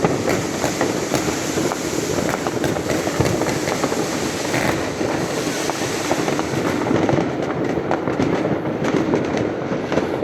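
Fireworks and firecrackers going off in a dense, unbroken barrage: a steady rattle of many small overlapping bangs and crackles.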